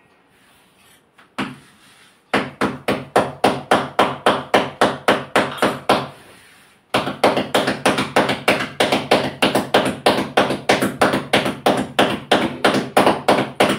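Palms patting a ball of jowar (sorghum) flour dough flat into a roti on the kitchen counter: a rhythmic slapping of about three pats a second. The patting begins about two seconds in and breaks off briefly midway.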